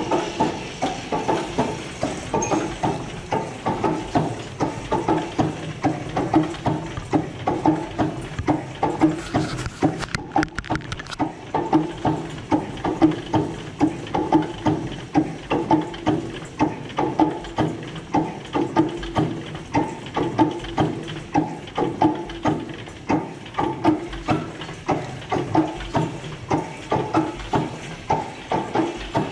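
Large old air-started stationary engine running smoothly at slow speed, with an even beat of about two firing pulses a second. A sharp click about ten seconds in.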